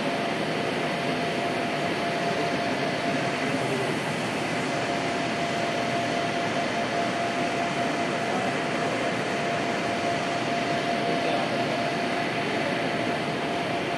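Factory machinery running steadily: an even mechanical hum with a constant thin whine through it.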